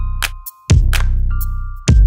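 Electronic background music: deep bass notes under sharp drum hits, with a held high synth tone.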